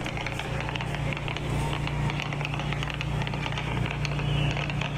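Aerial fireworks popping and crackling in rapid, overlapping clusters over a steady low rumble.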